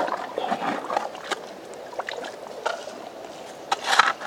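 Shovel and hands working wet river-bed cobbles and gravel: scattered clacks and scrapes of stone on stone, with a louder crunch near the end as the shovel blade is driven into the gravel.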